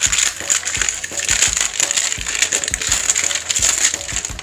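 Thin plastic wrapping crinkling and crackling as it is pulled off a new plastic pump-spray bottle, with a few light knocks from handling the bottle; the crinkling stops just before the end.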